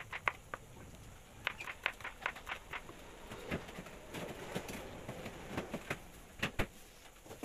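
Kitchen knife slicing bitter melon on a wooden cutting board: light, sharp taps of the blade on the board, a quick run of about four a second between one and a half and three seconds in, then scattered taps.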